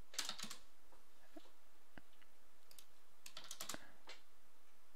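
Computer keyboard and mouse clicking in short clusters of taps. There is a quick run near the start, a single click about two seconds in, and a busier run of taps a little after three seconds.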